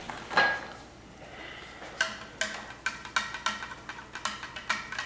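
A spoon clinking against the inside of a cup as a drink is stirred: one clink just under half a second in, then from about two seconds in a run of quick, irregular clinks, each with a short ringing tone.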